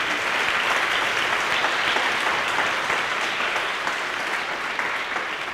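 Audience applauding, the clapping full within the first second and slowly tapering off toward the end.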